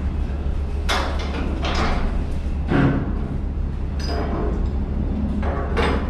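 Steel container lashing rods and tube-buckle turnbuckles clanking against each other and the containers as they are handled and fitted, about five separate metallic knocks, one with a brief ring about four seconds in, over a steady low rumble.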